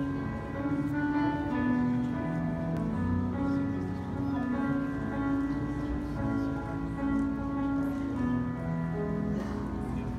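Piano playing slow, sustained chords, a soft instrumental introduction with no voices yet.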